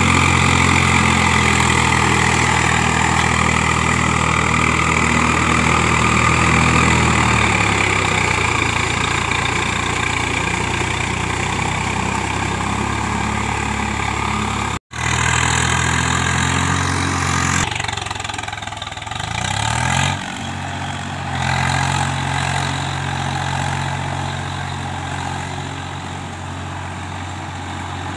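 Diesel farm tractor engine running steadily while working through a flooded paddy field. About halfway there is a sudden brief cut-out, after which the engine note changes and drops a little in loudness.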